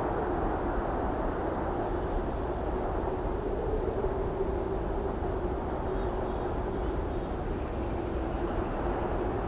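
Steady vehicle drone: a low rumble with a steady hum over it, unchanging throughout.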